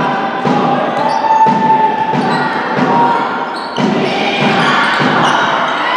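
Basketball game in a hall: a ball bouncing on the hardwood court in a steady rhythm of thuds, then busier court and crowd noise from about four seconds in.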